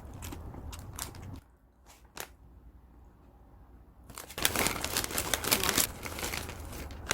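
Close-up eating sounds at first, then a short lull, then loud crinkling and tearing of a plastic snack wrapper being handled and opened from about four seconds in.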